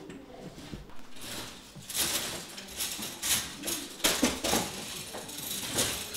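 Irregular knocks and clatters of a walking frame being set down on the floor as someone shuffles in with it, roughly one or two a second.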